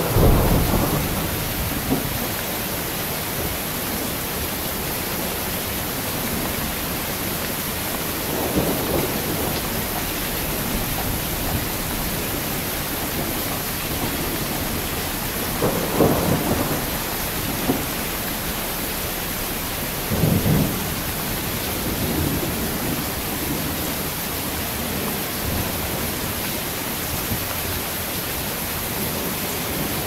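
Heavy rain falling steadily, with thunder: a sudden loud clap right at the start, then several low rumbles rolling in and out a few seconds apart.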